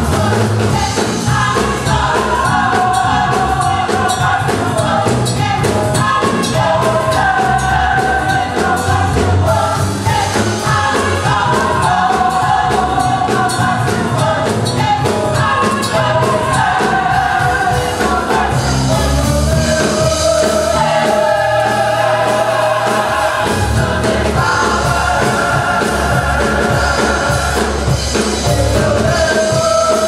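Gospel choir singing with a steady beat and bass accompaniment.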